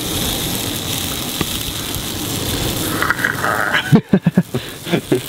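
A steady hiss, then a short burst of choppy laughter about four seconds in.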